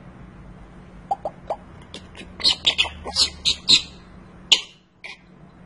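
African grey parrot vocalizing: three short low notes about a second in, then a quick run of clicks and high squeaky chirps, and two sharper single squeaks near the end.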